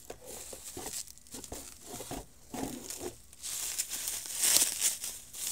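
Plastic bubble wrap crinkling and rustling in irregular bursts as wrapped parts are handled and pulled out of it, loudest near the end.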